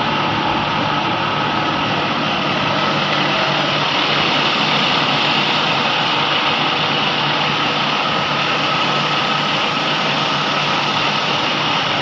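Diamond wire saw running steadily as its wire cuts through reinforced concrete: a continuous, even noise over a steady low hum.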